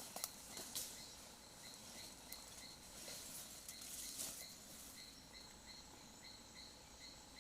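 Faint insect chirping: short, evenly spaced chirps about three a second, with a few brief rustles and clicks in the first seconds.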